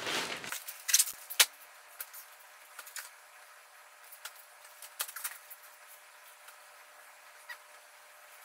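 Handling noise of clothes and a fabric storage box: soft rustling with scattered light clicks and taps, the sharpest two in the first second and a half, as sweaters are folded and packed into the box.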